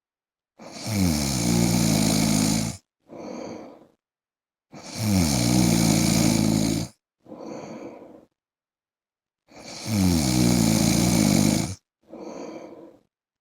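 A man snoring in his sleep: three long, loud snores of about two seconds each, evenly spaced, each opening with a falling pitch and followed by a shorter, softer breath.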